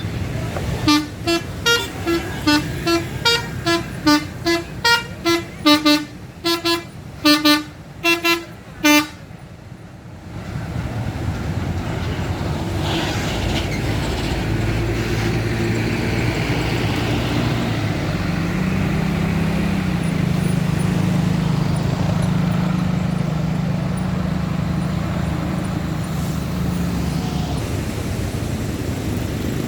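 A tour bus's musical 'telolet' (basuri) horn playing a quick tune of short toots that change pitch from note to note, for about eight seconds. Then the horn stops and the rest is heavy engine and road noise as vehicles run past.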